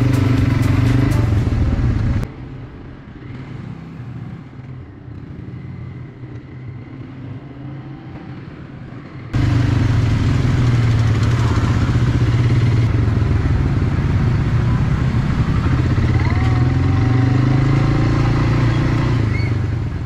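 Steady low rumble of a moving motor vehicle, engine and road noise. It drops to a quieter level about two seconds in and comes back loud again about nine seconds in, in abrupt cuts.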